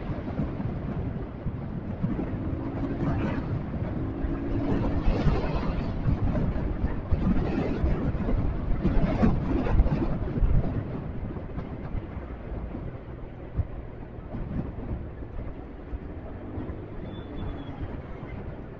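Motorcycle riding noise on a rider-mounted camera: wind rushing over the microphone mixed with engine and road rumble, surging louder through the middle and easing off toward the end.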